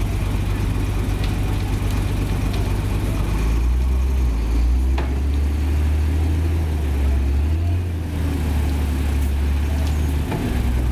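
Heavy diesel engine running steadily at low revs, a deep, loud drone whose note changes about three and a half seconds in.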